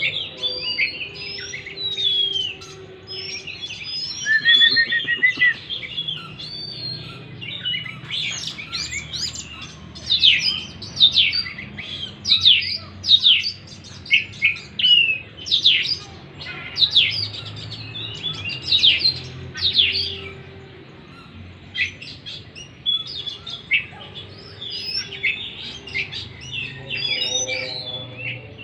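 Oriental magpie-robin (kacer) singing a varied song of clear whistles and quick sliding notes, with a busy middle stretch of rapid, sharp down-slurred notes. This is the kind of full song played as a lure to set a silent, stressed kacer singing.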